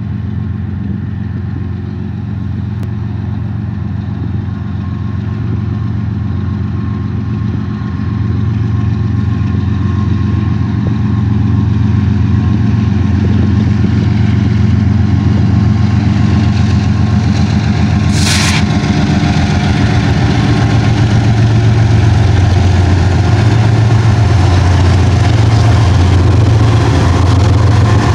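Two GE ES44 diesel-electric freight locomotives (BNSF ES44C4 leading, ES44AC trailing) pulling an intermodal train, their diesel engines droning low and steady, growing louder as they approach and draw alongside. A brief hiss cuts in about two-thirds of the way through.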